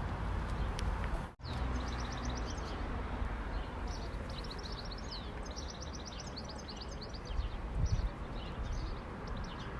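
A small bird singing, with runs of quick, repeated high chirps over a steady low rumble; the sound drops out briefly about a second and a half in.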